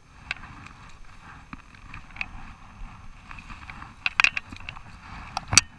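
Steady outdoor noise with a scattering of sharp clicks and knocks, the loudest a quick cluster about four seconds in and one more near the end.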